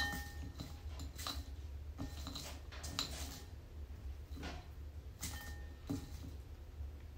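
A series of light clicks and clinks, roughly one every half second to a second, a few with a short ring: cacao beans tapping against a stone mortar and a wooden board. A steady low hum runs underneath.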